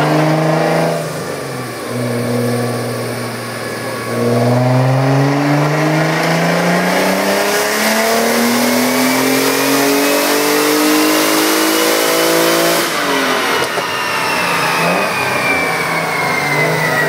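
Twin-turbocharged Infiniti G35's 3.5-litre V6 on a chassis dyno: after a few brief revs and shifts, the engine note climbs steadily through the revs for about nine seconds in a power pull. Then the throttle is lifted and the note drops, while a high whine falls away as the car coasts down.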